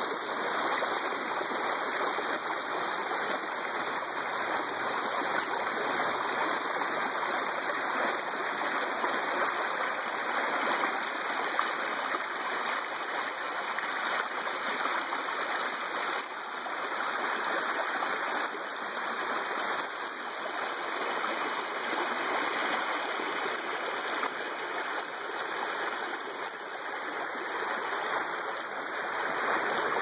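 Shallow rocky stream running over stones: a steady rush of flowing water.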